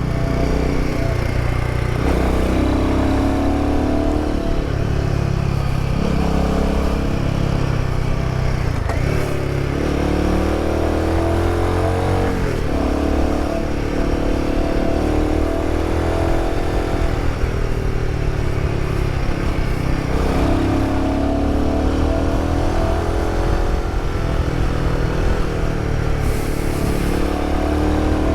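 Royal Enfield Himalayan 450's single-cylinder engine heard through a prototype aftermarket exhaust while riding twisty roads. The exhaust note rises and falls again and again as the throttle opens and closes and the gears change, louder than stock.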